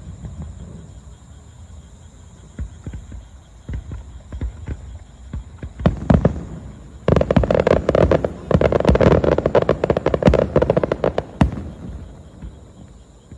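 Aerial fireworks going off: scattered sharp bangs of bursting shells, then about seven seconds in a dense, loud run of rapid crackling bangs that lasts about four seconds before thinning out.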